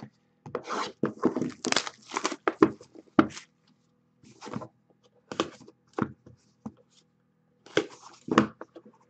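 Trading cards and cardboard hobby boxes handled on a tabletop: a string of irregular scrapes, taps and rustles, dense for the first few seconds and then scattered.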